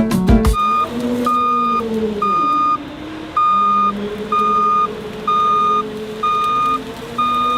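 A heavy vehicle's reversing alarm beeping about once a second, with its engine running underneath; the engine note dips and then rises again partway through. A moment of music ends just as the beeping begins.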